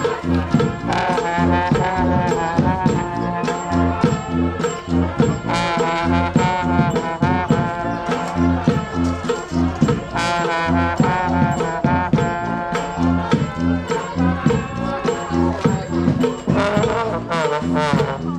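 Street brass band playing a lively tune: trombones and other horns carry the melody over a repeating low bass line, with drums.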